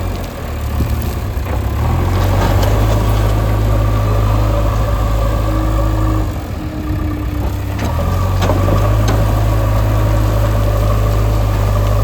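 Diesel engine of heavy road-construction machinery running steadily close by. It eases off for a couple of seconds past the middle, then comes back up.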